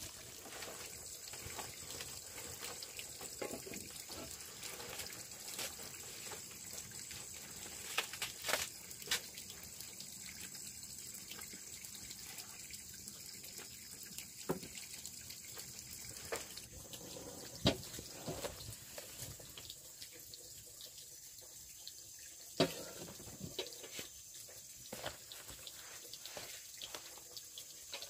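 Steady running water, with a few sharp knocks and clinks scattered through it.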